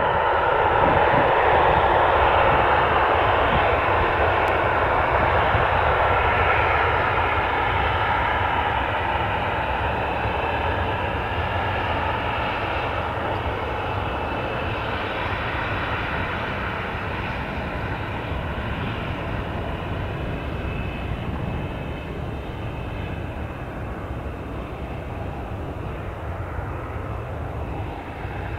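Boeing 737-800's CFM56-7B jet engines at takeoff power on departure, loudest at first, then fading slowly and steadily as the jet moves away.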